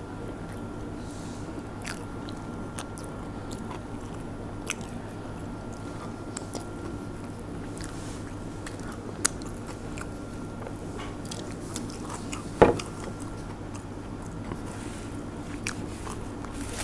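A person eating: a spoon scraping and clinking in a glass milkshake jar and chewing, over a steady low room hum. One sharp clack stands out a little past the middle.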